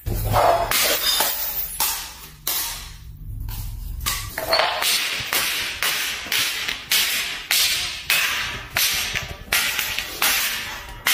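Small glass bottle tumbling down marble stairs, knocking and clinking on each step it hits: a run of sharp knocks, about two to three a second from about four seconds in.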